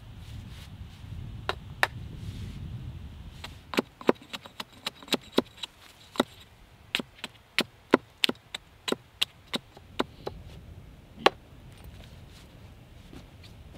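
Wood being chopped: a run of sharp chopping strikes, a couple at first, then about three a second for several seconds, and one last hard strike near the end.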